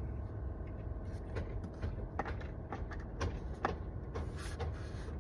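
Small clicks and taps of hand tools and plastic trim pieces being worked on a car's steering wheel, over a steady low hum.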